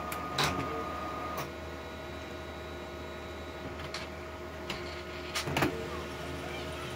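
Oki printer running through its power-on cycle: a steady low motor hum, with a faint whine that stops with a click about a second and a half in, and several more mechanical clicks around four to five and a half seconds in.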